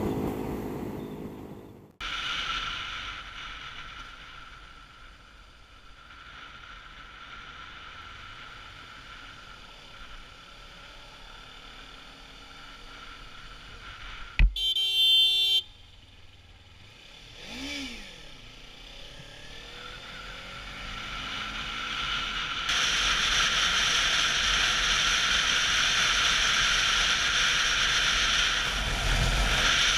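Kawasaki Ninja 300 ride heard from a camera on the bike: steady wind and road noise with the parallel-twin engine running underneath. About halfway through, a sharp knock is followed by a brief high tone lasting about a second. The wind noise gets louder for the last quarter.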